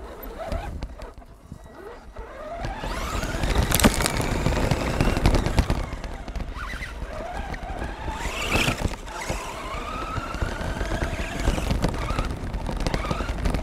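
Onboard sound of a Redcat Volcano RC truck driving over gravel: its motor whine rises in pitch several times as it speeds up, over the rough crunching rumble of the tyres on the stones.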